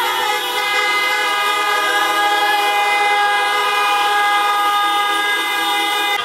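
Several car horns held down at once, overlapping into a steady chord of tones, from a motorcade of cars driving past.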